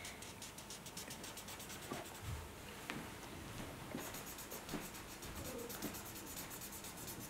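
Felt-tip marker scribbling on paper in quick, faint back-and-forth strokes while colouring in spots.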